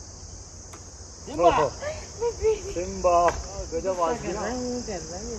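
Steady high-pitched drone of forest insects. Short, pitched, voice-like calls that bend in pitch break in over it from about a second and a half in, several times.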